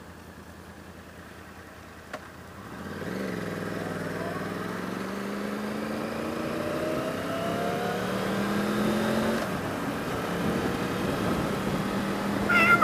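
Sport motorcycle engine idling, a single click about two seconds in, then pulling away and accelerating, the engine note rising and dropping back a couple of times as it shifts up. A loud cat meow starts right at the end.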